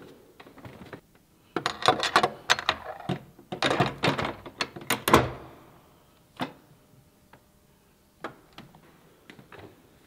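Large iron key rattling and turning in the old lock of a heavy wooden door: a few seconds of quick metallic clicks and clanks from the lock and latch, followed by a few scattered knocks or footsteps.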